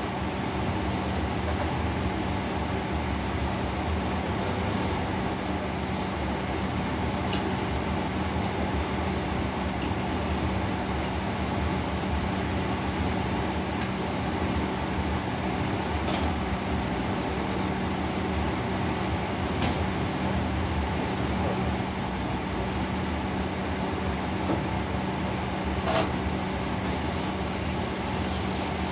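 Steady running noise of a commercial kitchen's exhaust hood and gas range, a constant hum that pulses slightly about once a second.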